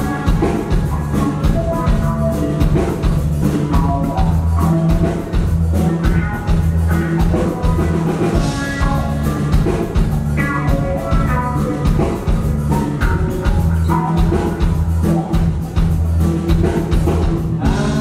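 Live band playing on stage: electric guitar over a steady bass line and drums.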